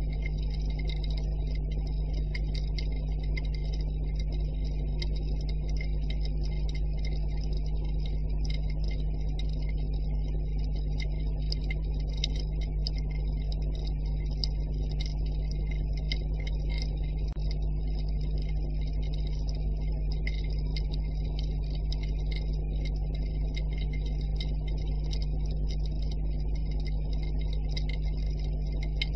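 Underwater ambience: a steady low rumble with dense, irregular crackling clicks.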